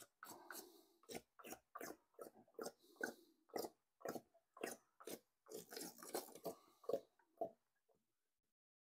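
Plastic jug of motor oil glugging as it is poured, a quick irregular run of gulps, about three a second, that stops near the end.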